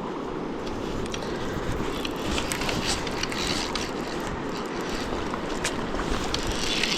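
Steady rush of flowing river water, with a scattering of small clicks over it.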